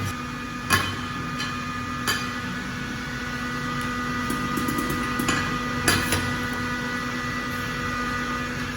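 Steady electrical hum of workshop machinery, with a few sharp knocks over the top.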